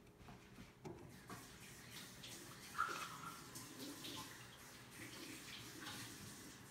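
Faint rustles and small clicks from hands handling a blender's plastic switch block, wires and housing on a cloth towel, with one sharper click a little before the middle.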